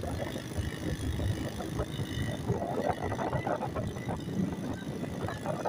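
Ride noise while travelling along a rough street: a steady low rumble with small rattles and knocks throughout.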